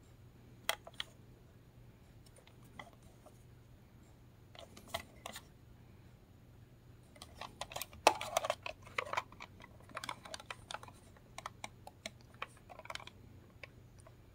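Small plastic clicks and taps from a handheld Sony TCM-313 cassette recorder being handled and turned over in the fingers, a few scattered ones at first and a denser run of clicks in the second half.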